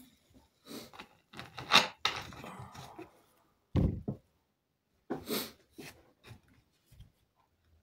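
A large plastic Coca-Cola bottle being handled, with scraping and crinkling, then set down on the table with a dull thud about four seconds in. A few softer rubbing sounds follow.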